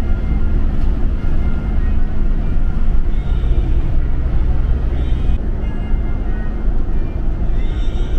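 Car driving on the road, heard from inside the cabin: a steady, heavy low rumble of engine and tyres with a constant hum.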